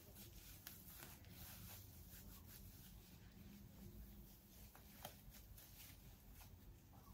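Near silence, with faint rustling and a few soft clicks as a synthetic full wig is pulled on and adjusted by hand.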